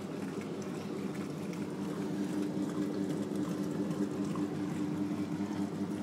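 Maytag commercial top-load washer filling its tub for the soak: water pouring in under the closed lid, with a steady machine hum whose tone grows stronger about two seconds in.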